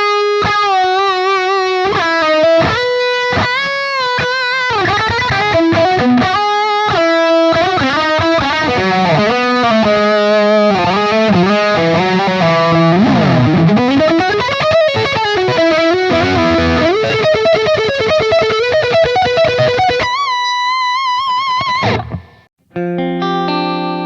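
gfc GHL-400ST headless electric guitar with humbucking pickups, played through distortion: a lead line of sustained notes with wide vibrato, string bends and fast runs. It ends on a long held vibrato note, cuts off about two seconds before the end, then a cleaner sounding chord rings out.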